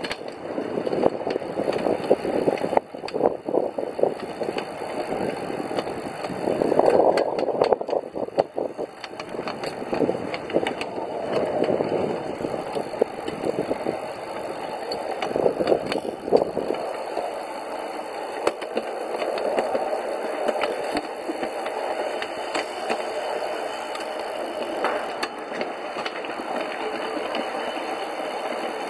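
Pedal-powered 5-inch gauge rail car rolling along the track: a steady rumble of steel wheels on the rails with frequent irregular clicks and rattles. The low rumble eases after about 17 s.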